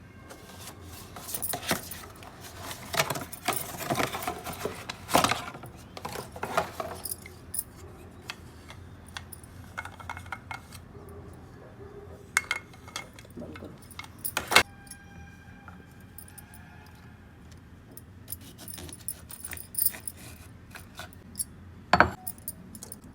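Small hard kitchen utensils or gadget parts clinking and clattering as they are handled, busiest in the first several seconds, with scattered clicks after and two sharp clicks about fourteen seconds in and near the end.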